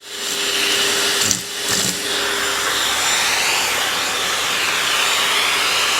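Vacuum cleaner running steadily with a whining motor hum, dipping briefly with a couple of knocks about a second and a half in.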